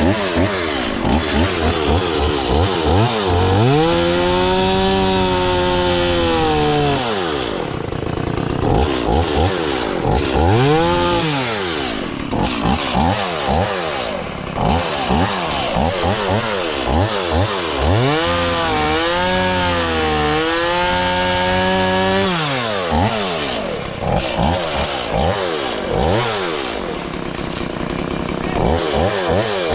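Chainsaw cutting wood, revving up and dropping back again and again, with two longer stretches held at high revs, about four and eighteen seconds in.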